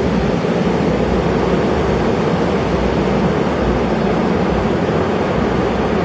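Rough Atlantic surf breaking on the shore: a loud, steady roar of churning waves with no single crash standing out.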